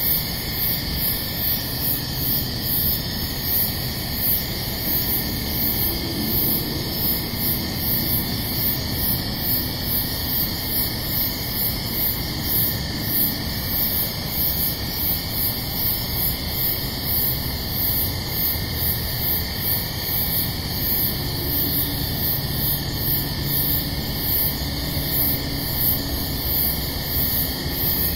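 Night insect chorus: a high chirp pulsing evenly about twice a second over steady trilling, with a constant hiss underneath.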